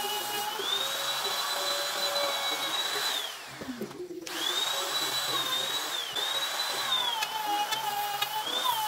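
Electric router cutting a groove in an MDF door for an aluminium strip inlay: a high motor whine whose pitch sags and recovers as the bit bites into the board. It winds down about three seconds in and runs again about a second later.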